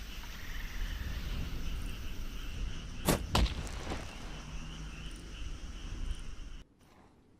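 A makeshift throwing knife striking home: two sharp impacts about a third of a second apart, over steady background noise that cuts off abruptly near the end.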